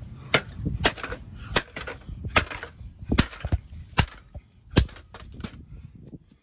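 Hammer blows smashing an old desktop computer's metal case, about ten sharp hits at an uneven pace.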